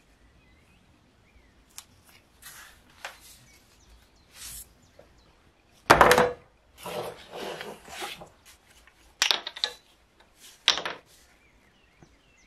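Handling sounds on a wooden workbench: scattered faint rustles and clicks, then a loud knock about halfway through as the steel bayonet is laid on the wood. After that come a second of rustling and two more sharp scrapes or clicks as a tube of abrasive paste is handled.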